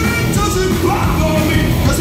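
Hard rock band playing live at full volume: electric guitars, bass and drums, with a male singer's voice over them.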